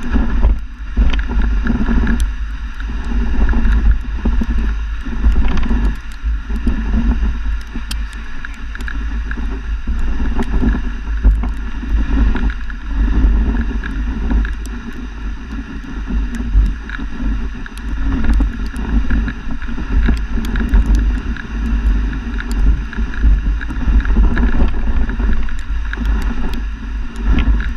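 Loud, uneven wind buffeting on the microphone over a steady rushing noise.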